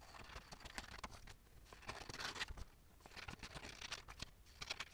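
Faint crisp snipping of scissors cutting through printed paper, with rustling as the paper sheets and strips are handled.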